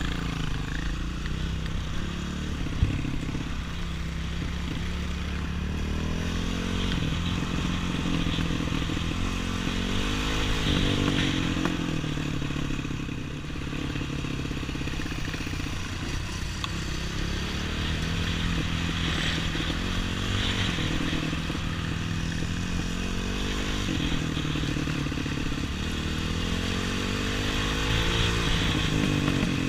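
Off-road trail motorcycle running under way, its engine pitch rising with the throttle and dropping back again several times.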